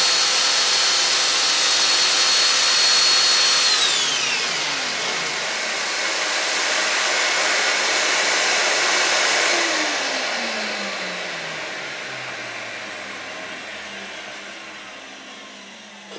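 Electric belt sander with a vacuum dust extractor on its hose, switched off and running down: the high motor whine drops in pitch about four seconds in, then the remaining airflow noise fades slowly with a falling hum over the last several seconds.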